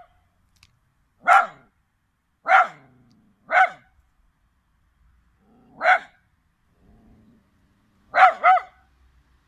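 Chinese crested dog barking: six short single barks spaced one to two seconds apart, the last two close together as a double bark near the end.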